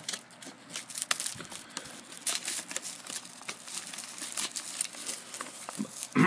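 Crinkling and crackling of a plastic snack pack and dry roasted seaweed sheets being handled, with a brief falling voice sound right at the end.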